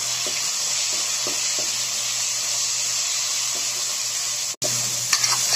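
Onion-tomato masala frying in hot mustard oil in a metal pan, sizzling steadily as it is stirred with a spatula, with a few faint scrapes; the powdered spices just added are being fried into the masala. The sizzle breaks off for an instant about four and a half seconds in, then carries on.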